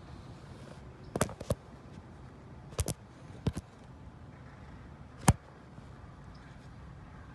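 Several sharp clicks or knocks, mostly in close pairs, with a single loudest one near the end.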